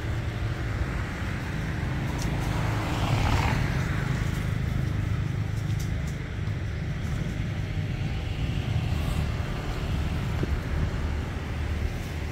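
Steady low background rumble, with a broad swell that rises and fades about three seconds in.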